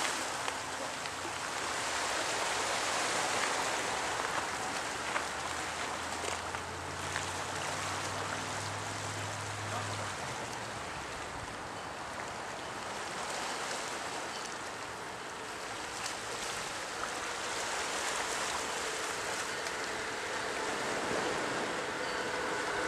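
Steady outdoor noise of wind and surf along a rocky shoreline, with a faint low hum from about five to ten seconds in. Near the end the faint sound of an approaching Amtrak Acela trainset begins to come in.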